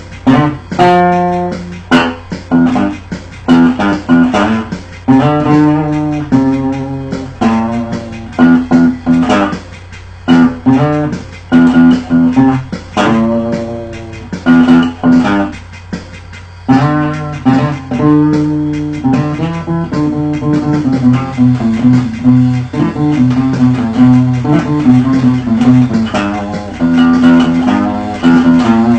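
Acoustic guitar played as a bass, in a run of sharply plucked low notes with occasional fuller chords.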